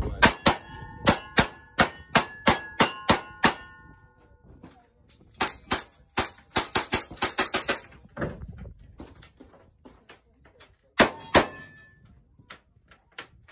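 A rapid string of revolver shots, about ten in three and a half seconds, each answered by the ring of steel targets. More shots follow in a quick burst about halfway through, and two more shots come near the end.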